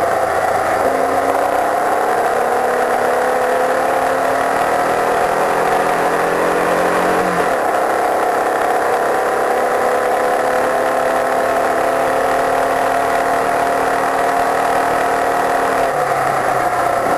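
Open-wheel race car's engine running hard on track, heard from a camera mounted on the car's side over a steady rush of wind and road noise. Its pitch climbs slowly and steadily, with sudden changes in pitch about seven seconds in and again near the end.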